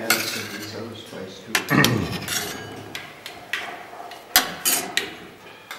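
Steel spoons clinking and scraping on stainless-steel thali plates at metal tables, with several sharp metallic clinks that ring briefly.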